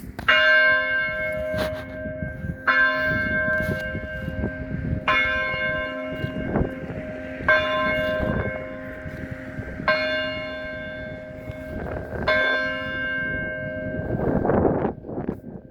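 A single tower bell struck six times at an even pace, about two and a half seconds apart, each stroke ringing on until the next: a clock bell striking the hour. Wind noise and a low rumble run underneath and swell near the end.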